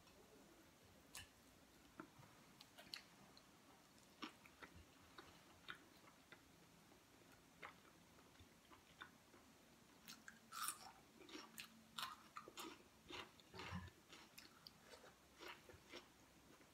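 Quiet chewing and small mouth clicks of a person eating by hand, scattered at first and growing busier about ten seconds in.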